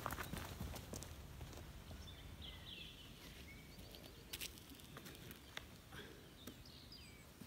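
Faint forest ambience: small birds chirping in two short bouts, about two and a half seconds in and again near the end, with scattered footsteps and rustles in dry leaf litter.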